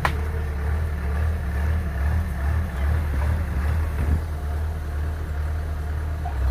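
Kubota DC-105X crawler combine harvester running steadily under load while it cuts rice: a continuous low engine drone.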